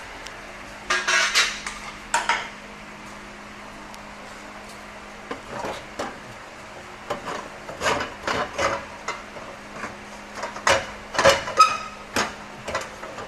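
Metal tools and parts clinking and clanking in irregular strokes over a steady low hum. A short cluster comes about a second in, and a busier run of knocks fills the second half, one of them ringing briefly.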